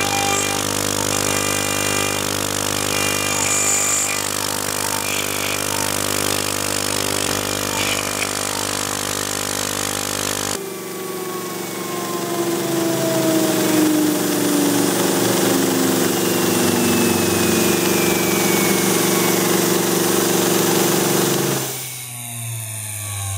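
High-speed CNC router spindle running, with a steady mechanical whine while a carbide end mill cuts 5 mm aluminium plate. About ten seconds in the sound changes abruptly, and the whine then slowly falls in pitch before dropping in level near the end.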